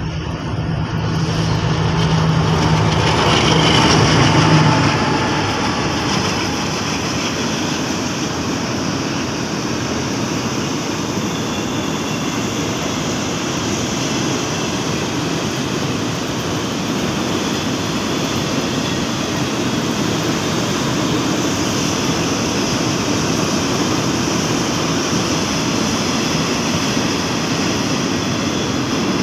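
KTMB Class 29 diesel-electric locomotive passing close with its engine running, loudest about four seconds in. Then a long string of container flatcars rolls by with steady wheel-on-rail noise.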